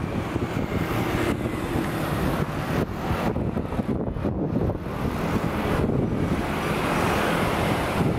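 Wind buffeting the microphone over steady street traffic noise.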